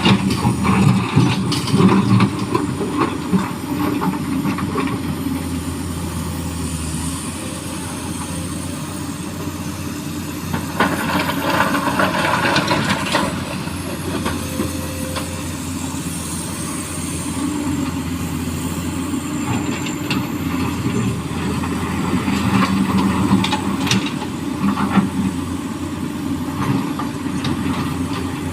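Hydraulic excavator's diesel engine running steadily under load while it digs and loads small stones into a dump truck, with louder rattling rushes about eleven seconds in and again later as stones pour into the truck bed.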